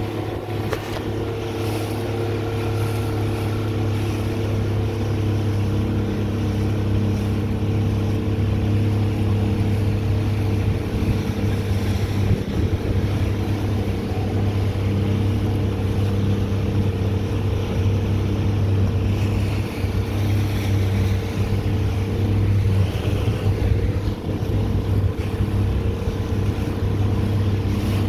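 Motorboat engine running steadily as the boat cruises, a constant low drone with several steady tones above it, over the rush of water and wind.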